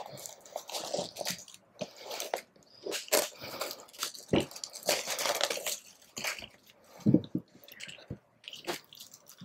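Clear plastic shrink-wrap being peeled and torn off a large book, crinkling and crackling unevenly, with a couple of dull knocks as the book is handled.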